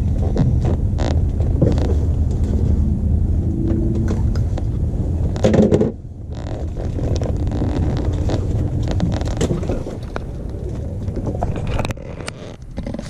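Steady low rumble of wind buffeting the microphone and the ice-fishing shelter, easing off about six seconds in. Scattered scrapes, clicks and rustles come from handling in the shelter.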